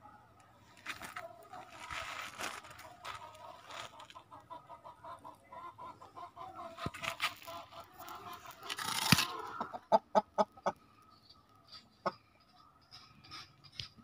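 Chickens clucking in short, quick runs of calls through the last third. Before that come two stretches of scratchy noise, the louder just past nine seconds.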